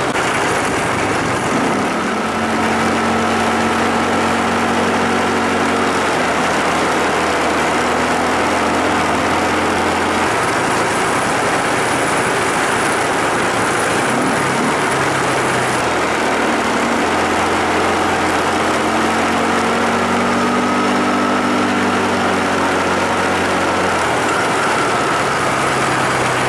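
A vehicle engine running steadily under a loud rush of noise. Its pitch shifts to a new steady speed several times.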